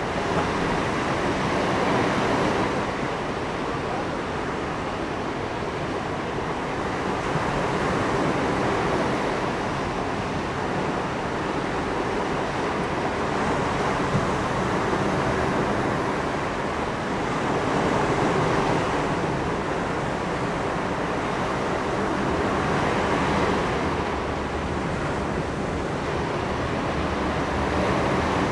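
Ocean surf breaking on a sandy beach, swelling and fading about every five seconds, over a steady low hum.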